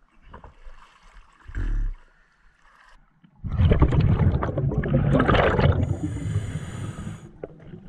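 A camera goes under lake water about three seconds in, then loud, muffled rushing and gurgling of water against it as the diver swims down. A short low thump comes before the plunge.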